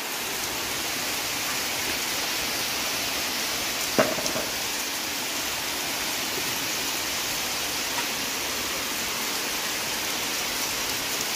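Steady rain falling onto puddles and wet ground, an even hiss of splashing. One sharp knock sounds about four seconds in.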